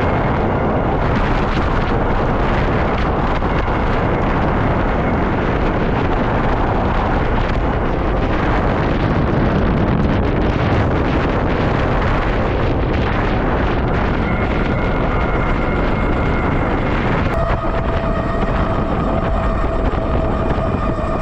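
Heavy wind buffeting an action camera's microphone while riding an electric bike downhill at speed. Near the end a steady whine comes in over the wind.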